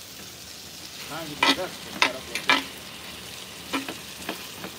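Sausage and chicken sizzling in a black cast-iron pot while a metal spoon stirs them, scraping and clinking against the pot about half a dozen times.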